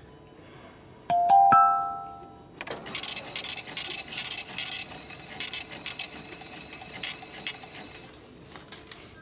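A checkout chime of several bright tones rings out about a second in, the sign that the payment went through. Then a receipt printer chatters with rapid clicks for several seconds and stops near the end.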